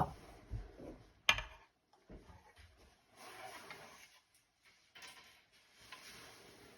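A jug of freshly steamed milk knocked against the counter, a soft knock then a sharper one, to get the bubbles out of the milk. Faint handling and swirling sounds follow.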